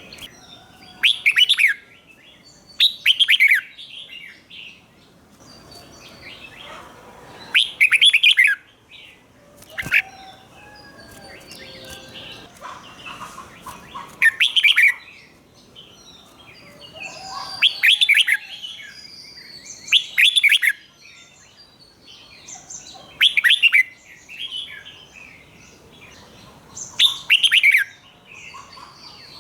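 Red-whiskered bulbul singing: about eight short, loud whistled phrases a few seconds apart, with softer chirps between them.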